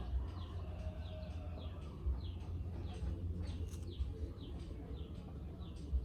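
Small birds chirping: a steady series of short, high, falling chirps, about two a second, over a low rumble.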